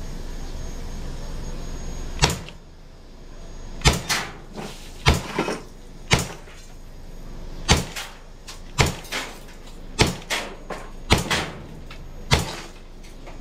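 Glock 17 CO2 pistol firing steel BBs: a string of about ten sharp pops, roughly one a second. Several pops are followed closely by a quieter crack of glass as the BBs hit and break a beer bottle.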